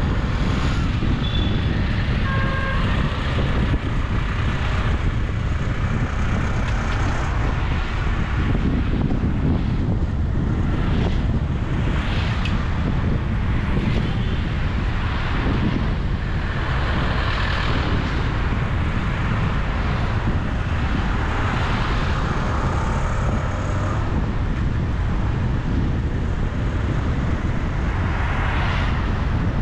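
Road traffic heard from a moving vehicle: a steady low rumble of road and wind noise, with other vehicles passing and swelling louder several times.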